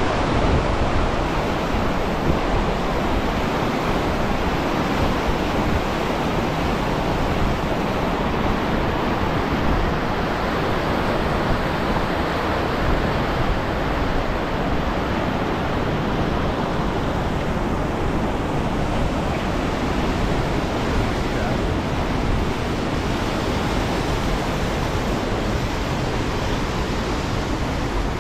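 Fast mountain river running over rocks in white-water rapids: a loud, steady rush of water.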